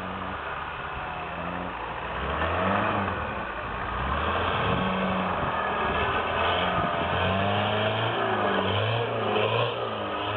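Off-road vehicle's engine revving up and down over and over, its pitch rising and falling as the throttle is worked, growing louder about two seconds in.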